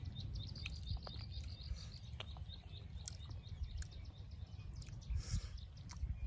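Small birds chirping, mostly in the first second or so, over a steady low rumble, with scattered faint clicks and a brief rustle about five seconds in.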